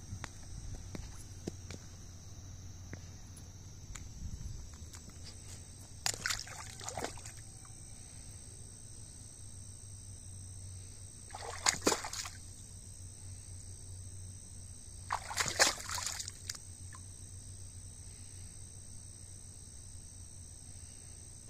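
Floodwater sloshing and splashing in three short bursts, about six, twelve and fifteen seconds in, over a steady high drone of crickets.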